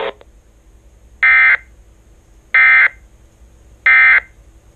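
Emergency Alert System end-of-message (EOM) data bursts: three short, buzzy digital bursts about 1.3 seconds apart, signalling that the alert has ended.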